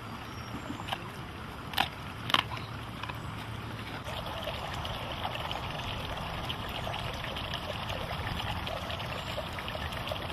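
Steady rushing background noise with no pitched sounds in it, and a few sharp clicks in the first two and a half seconds.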